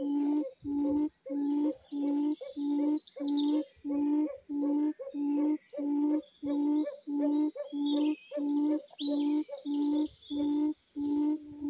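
A low hooting quail call repeated very evenly, about two notes a second, in a quail-trapping setup. Smaller birds chirp and trill higher above it.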